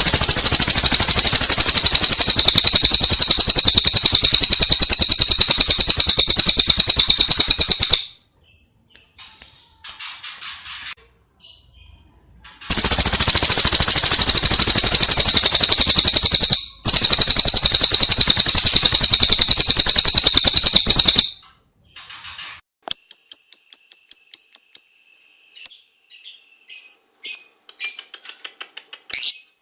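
Recorded songbird song used for training caged birds: a loud, fast, buzzing trill held for about eight seconds, broken off, then repeated for another eight, followed by a run of short high chirps that come quicker and quicker.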